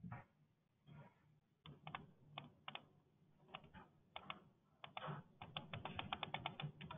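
Faint typing on a computer keyboard: scattered keystrokes, then a quick run of keys in the last couple of seconds.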